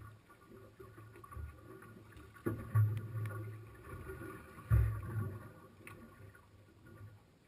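Two loud, low thumps about two seconds apart while a small shark is handled and unhooked at a boat's gunwale.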